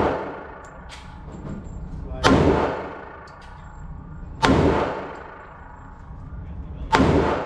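Three pistol shots fired slowly, a little over two seconds apart. Each is a sharp crack with a long echoing decay inside an indoor range booth.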